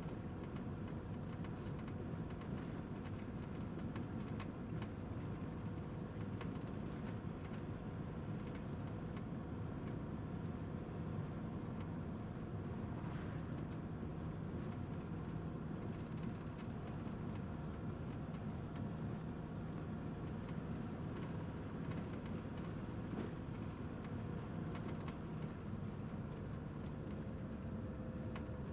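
Steady vehicle running noise: an even rumble with a constant low hum and a few faint clicks.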